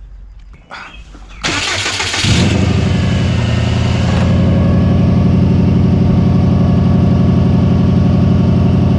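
2002 Subaru WRX's turbocharged flat-four engine being cranked by the starter about a second and a half in, catching within a second and then idling steadily. The engine has a misfire at idle, which the owner traced to a failed idle air control valve.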